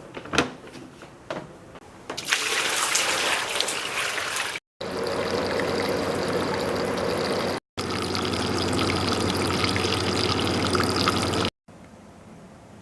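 Water pouring and trickling, in three clips that start and stop abruptly, the later two with a steady hum under the water; a few clicks come before the first. It fits water being filled into a portable evaporative air cooler's tank.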